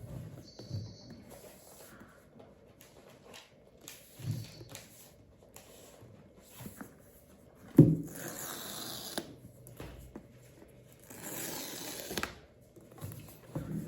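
Cardboard box and packaging being handled during an unboxing: a few light taps, a sharp knock about eight seconds in, then two rustling stretches of about a second each.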